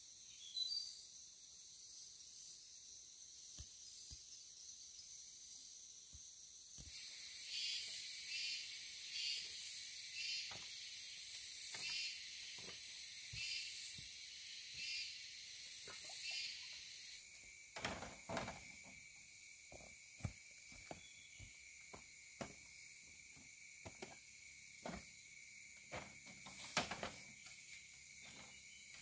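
Forest insects trilling steadily. About a third of the way in, a louder, rhythmically pulsing insect chorus joins them and stops suddenly about halfway. Through the second half come scattered light knocks of footsteps and handling on a bamboo platform.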